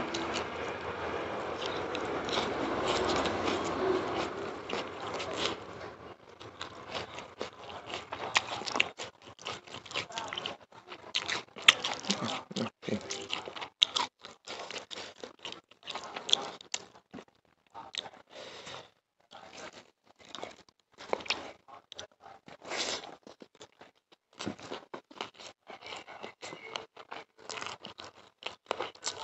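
Fingers mixing and squishing rice with chicken curry for about the first six seconds, then close-up chewing and crunching of chicken, with many short wet mouth clicks.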